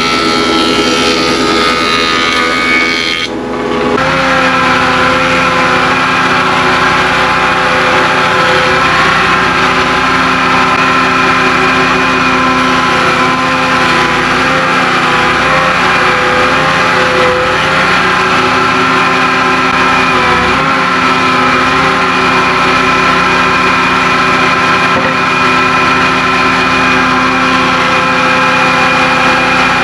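Woodworking planer and shop dust collector running together, a steady loud motor whine with several held tones as a glued-up board is planed flat. About three and a half seconds in the sound briefly dips and then settles into a new steady whine.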